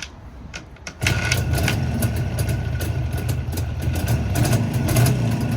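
Jawa 350 two-stroke twin motorcycle engine starting about a second in and settling into a steady idle, freshly fitted with a new piston and rings. It carries a faint metallic noise that the owner puts down to a piston ring.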